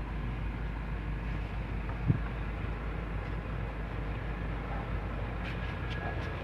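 Steady low background rumble with one short thump about two seconds in.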